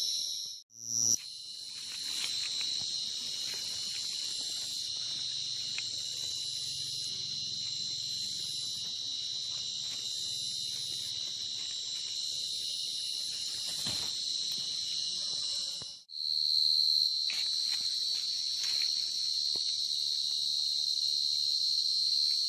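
Dense chorus of many field crickets chirping, a steady high-pitched ringing that cuts out briefly twice, about a second in and about sixteen seconds in.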